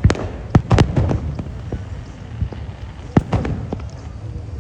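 Fireworks going off: a quick cluster of sharp bangs in the first second, scattered quieter pops, then another cluster about three seconds in, with a low rumble between the bangs.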